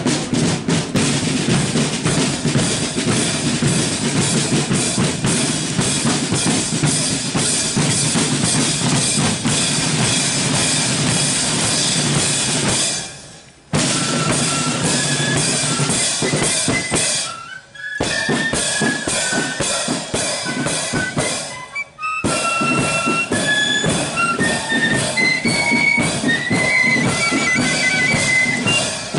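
Marching flute band: snare and bass drums beat a march, and flutes play a tune over the drums from about halfway on, with a few brief drop-outs in the middle.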